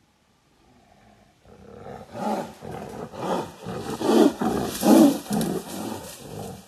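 Siberian tiger roaring: a rough, pulsing roar that starts about a second and a half in and swells in several surges, loudest around four and five seconds in.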